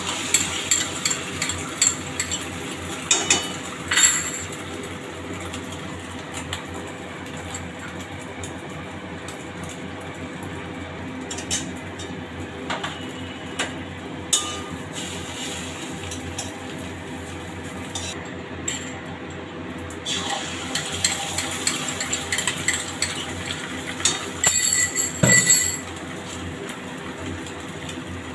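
Omelettes frying in oil in a steel wok with a steady sizzle. Over it, a utensil and a glass bowl clink and scrape against the pan, in a flurry near the start and again in a burst of clinks near the end.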